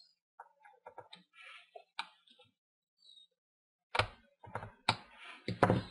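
Faint clicks and ticks of a small electronics screwdriver backing a tiny screw out of a laptop's plastic screen bezel, then a handful of louder knocks and clatter on the laptop's plastic body from about four seconds in.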